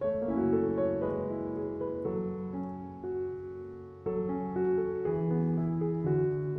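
Background piano music: a slow melody over held chords, with new phrases striking in at the start and again about four seconds in.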